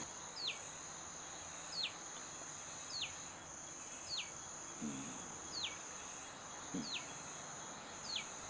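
Faint background of insects droning steadily on one high note. A short, high, falling chirp repeats about once every second.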